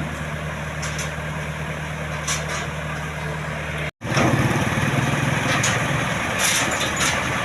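Combine harvester's diesel engine running steadily. About halfway through, the sound cuts out for an instant and comes back louder and rougher, with a few clicks.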